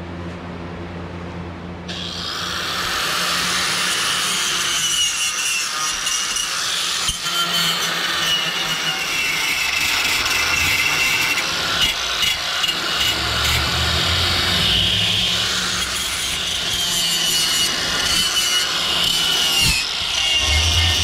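Cordless angle grinder with an abrasive attachment, running and being worked over a flat 16-gauge steel plate. It makes a steady, scratchy grinding that starts about two seconds in and wavers as the tool is pushed across the metal.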